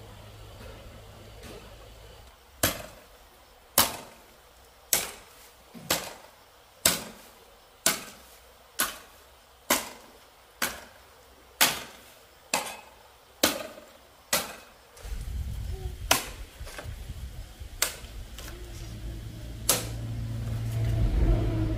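A series of about a dozen sharp knocks, evenly spaced at roughly one a second, each dying away quickly. After about fifteen seconds a low rumble comes in and the knocks become fewer and irregular.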